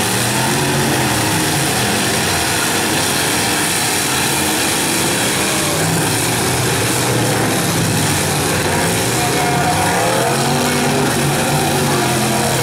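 Several V8 demolition derby cars' engines revving up and down, their pitches rising and falling against one another over a steady wash of noise.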